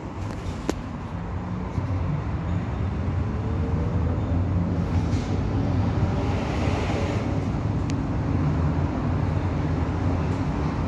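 Tram cabin noise as the tram pulls away from a stop and gets under way: a steady low rumble of motors and wheels on the rails, growing louder from about two seconds in, with a faint rising whine as it speeds up and a couple of light clicks.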